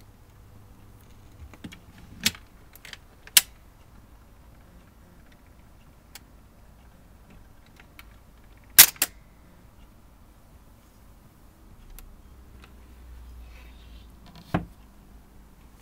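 Scattered sharp mechanical clicks from a Garrard SP25 Mk II turntable's tonearm and controls as the record player is handled after the record ends, with a loud pair of clicks about nine seconds in. Near the end comes a single knock as the record player's lid is shut.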